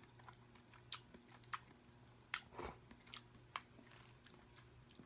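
Faint chewing of a mouthful of noodles: a few soft, sharp mouth clicks and smacks, spaced roughly half a second to a second apart.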